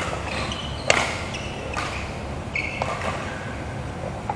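Badminton play: a sharp smack of a racket striking the shuttlecock about a second in, with short squeaks of court shoes on the mat around it.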